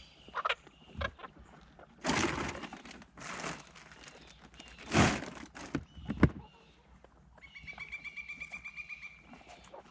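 Chicken giving a rapid trilling call of about two seconds near the end, after a few loud rustling bursts and sharp knocks from handling.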